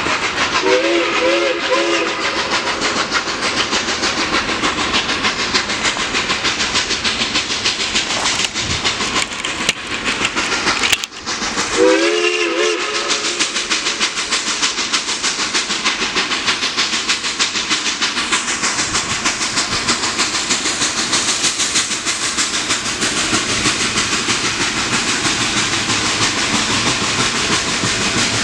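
Narrow-gauge steam locomotive working with steady exhaust and steam hiss. Its multi-tone whistle sounds briefly twice: about a second in, and again about twelve seconds in.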